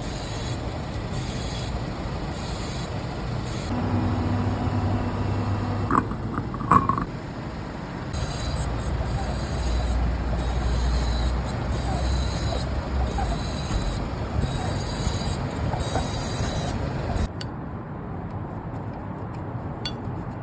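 Suzuki Wagon R making an abnormal rhythmic 'shah-shah' scraping hiss, pulsing about once a second over the car's running noise, with two sharp clicks about six to seven seconds in. The hiss stops suddenly a few seconds before the end.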